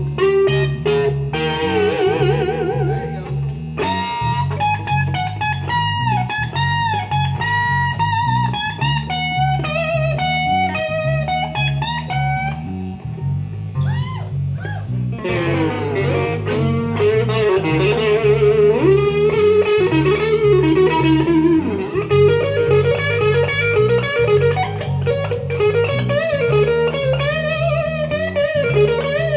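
Live instrumental blues-rock: an electric guitar plays a lead line with bent and wavering notes over an electric bass repeating a steady riff. The lead thins out briefly about halfway, then comes back.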